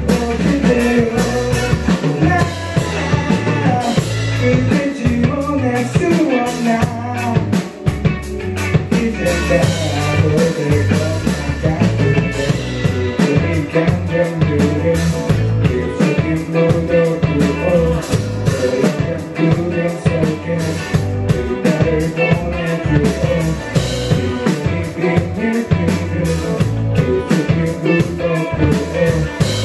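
Live band playing: electric guitars, electric bass and a drum kit keeping a steady beat, with a man singing.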